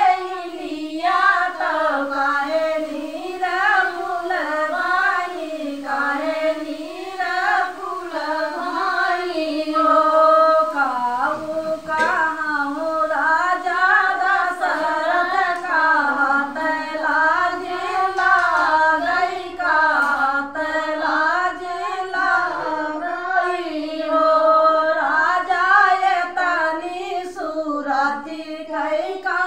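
A woman singing a sohar, a North Indian folk song for a child's birth, in a long, wavering melody without instruments.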